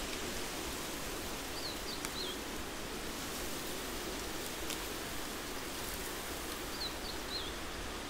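Summer forest ambience: a steady rushing wash of background noise through the trees, with a small bird calling a short phrase of quick, high, wavering notes twice, about a second and a half in and again near the end.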